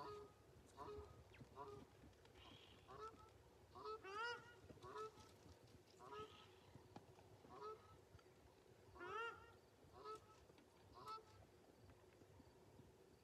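Faint goose-like honking from birds: short, repeated honks rising in pitch, about two a second, louder around four seconds in and again around nine.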